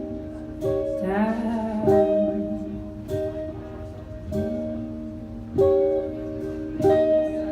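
Live acoustic song between sung lines: a strummed acoustic string instrument keeps up steady chords, with regular strokes. A voice holds a low, wavering note about a second in and again about four seconds in.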